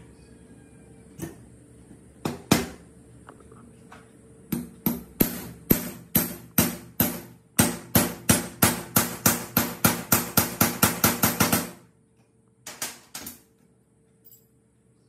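Hammer blows on metal: a few scattered strikes, then a steady run of about two dozen blows that speed up from about three to about five a second and stop abruptly, followed by two more.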